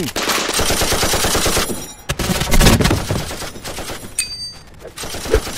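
Machine-gun fire sound effects: a long burst of rapid shots, a short break, then a second burst about two seconds in that tails off, with a few single cracks near the end.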